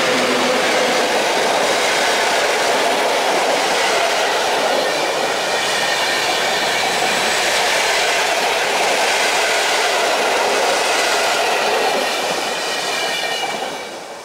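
Passenger coaches of a PKP Intercity train rolling past at speed on a railway bridge: a steady, loud rush of wheel and rail noise that fades away near the end as the last coach goes by.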